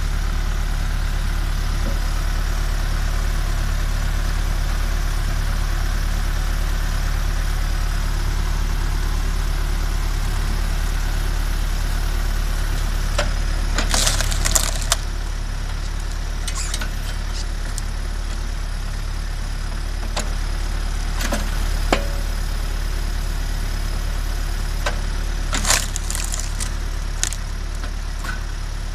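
MTZ 552E tractor's diesel engine running steadily, driving a Posch HydroCombi 22 hydraulic log splitter. From about the middle on, the log cracks and splinters in sharp snaps as the wedge forces it apart, with a cluster of cracks near the end.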